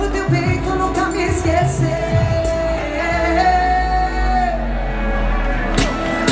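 Live band playing a romantic pop song over the PA, with singing and a long held note near the middle over a steady beat.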